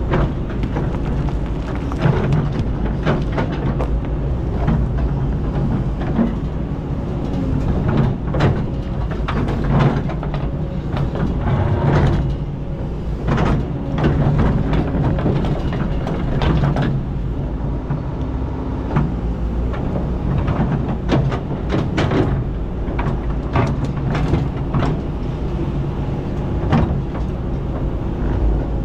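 Hydraulic excavator's diesel engine running steadily under load, with repeated knocks and scrapes as the steel bucket digs into sand and rocks.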